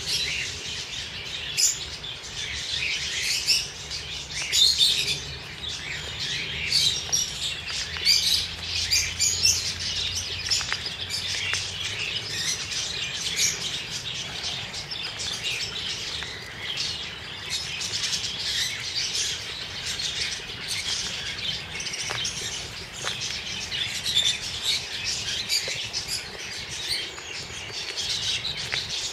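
A chorus of small birds chirping and twittering without a break, made up of many short, high notes.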